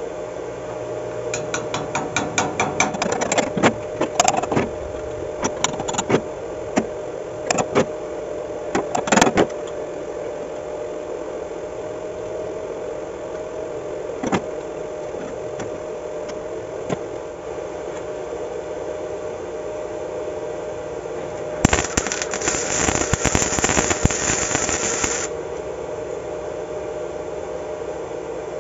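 MIG welder arcing. It gives several short crackling tacks in the first ten seconds, then a steadier sizzling weld run of about three and a half seconds near the end, over a steady hum.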